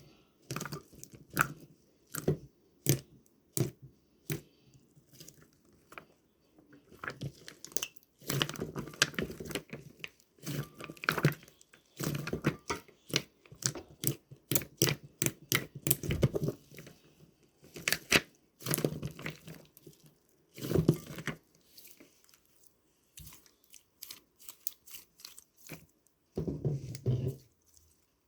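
Clear slime being squished and pressed by hand, making irregular wet clicks and pops that come in bursts with short pauses between.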